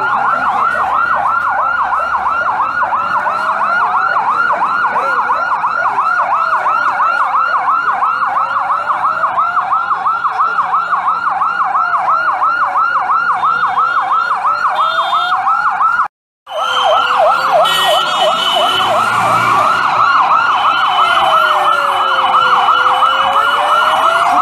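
Two emergency-vehicle sirens sounding at once: one in a rapid yelp, rising and falling several times a second, the other in a slow wail that sweeps up and down every few seconds. The sound drops out for a split second about two-thirds of the way through.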